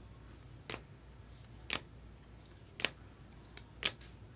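Four sharp clicks or snips, evenly spaced about a second apart, from cards and packaging being handled on a tabletop.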